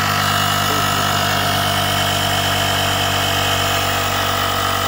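Built-in air compressor of a CAT 1200A portable power station running steadily, inflating a car tyre. The sound is a loud, even hum with a few steady higher whining tones.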